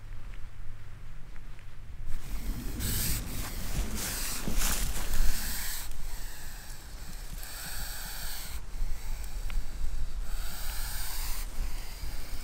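A viper hissing in a string of breathy puffs, each about half a second to a second long, over a low wind rumble.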